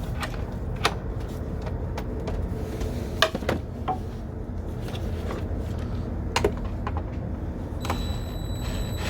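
Scattered light clicks and knocks of hand tools and engine parts being handled while an intake manifold is fitted, over a steady low rumble. A faint high whine starts near the end.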